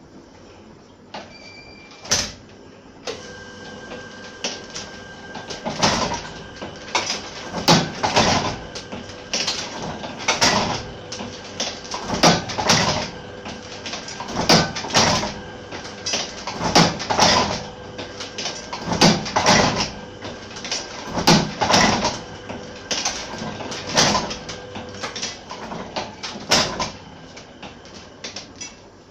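Old platen letterpress running, clanking with each impression roughly every two seconds over a steady machine hum that starts about three seconds in. The rhythm and hum die away near the end.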